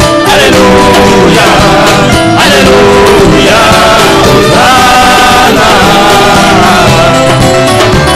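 A group of male voices singing a gospel song together through microphones, loud and amplified, with long held notes in the middle of the passage.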